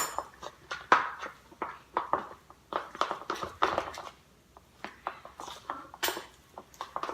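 Spoons scraping and clinking against bowls while stirring a thick cornstarch-and-yogurt slime mixture, in short irregular strokes with a light clink about at the start.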